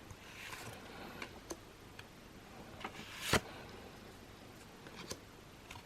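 Pokémon trading cards being handled while a booster pack is looked through: faint scattered clicks and taps, with one louder snap a little over three seconds in.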